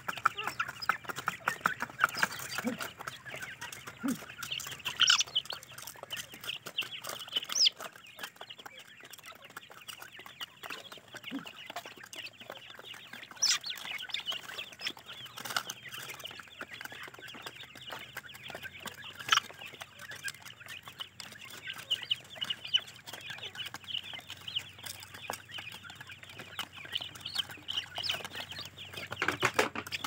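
A group of young francolins (teetar chicks) chirping and peeping almost without pause, with a few sharp clicks scattered through.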